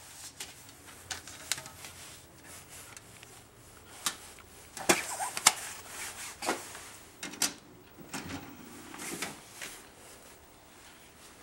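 Handling clicks and knocks from a plastic DVD case and a DVD player being loaded, with rubbing in between. The sharpest clicks come in a cluster about five seconds in.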